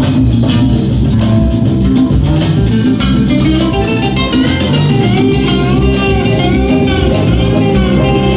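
Guitar-led music with bass and a steady beat, some notes bent in pitch.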